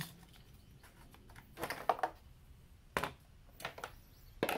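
Engine oil dipstick being handled and wiped with a rag: a few sharp clicks and taps about a second or more apart, with a brief rubbing sound in between.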